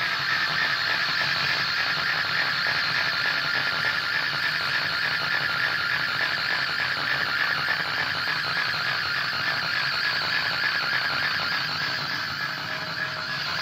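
Steady wash of electric guitar amplifier noise and feedback, with a high ringing tone that fades over the first half, and no drums playing.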